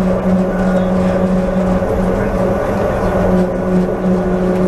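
Driverless airport people mover running through a tunnel, heard from inside the car: a steady electric hum with a few held tones over the rumble of the car rolling along the guideway.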